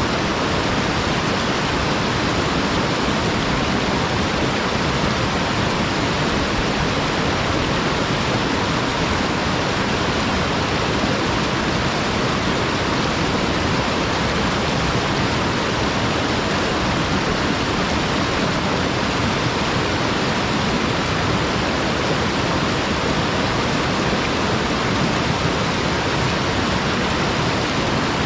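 Waterfall sliding straight down a flat, smooth rock slope, a steady, even rush of water with no breaks or changes.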